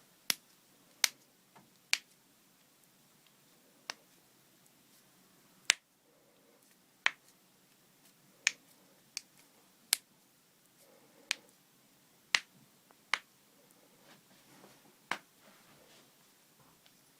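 Joints cracking one after another: about fifteen sharp single pops, irregularly spaced from under a second to two seconds apart, some loud and some faint.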